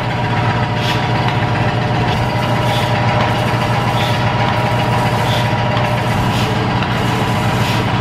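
Milking machine running: a steady drone from the vacuum system, with a short hiss from the NuPulse claw's built-in pulsator about once a second.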